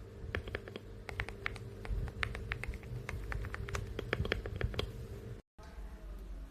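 Typing on a mechanical keyboard: rapid, irregular keystroke clicks, several a second, over a steady low hum. The sound cuts off suddenly about five seconds in and a quieter segment follows.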